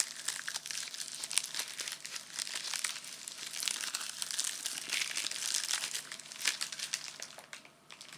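Gift wrapping being crinkled and handled close to the microphone: a dense, crackly rustle with many small clicks, easing off a little near the end.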